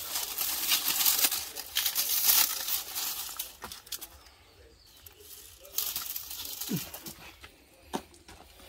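Dry palm fronds rustling and crackling as they are handled and pushed into a fire pit, loud for the first three seconds or so, then quieter with a few scattered crackles.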